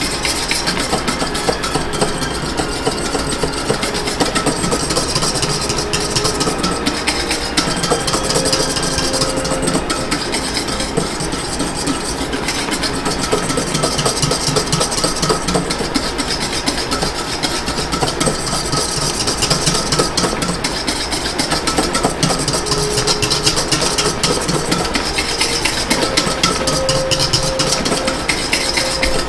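Wire whisk beating an egg custard base in a stainless steel bowl set over a hot water bath: steady, rapid clicking and scraping of metal wires against the metal bowl.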